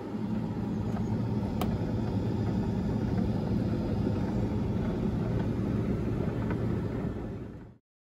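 Hoover condenser tumble dryer running: a steady hum and rumble from its motor and turning drum, with one sharp click about a second and a half in. The sound fades out just before the end.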